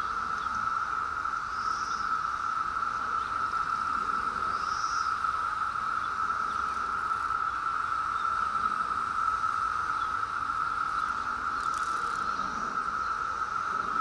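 Chorus of male Brood X periodical cicadas: a steady, unbroken drone at one pitch, with two brief higher buzzes about two and five seconds in.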